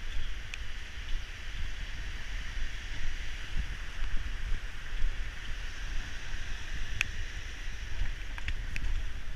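Storm wind buffeting the microphone in uneven low gusts over a steady rushing hiss. A sharp click comes about seven seconds in, and two fainter ones follow shortly after.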